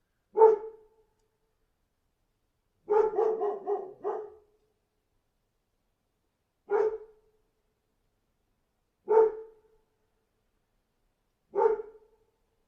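A dog barking: one bark, then a quick run of about five barks, then three single barks spaced a couple of seconds apart, with silence between them.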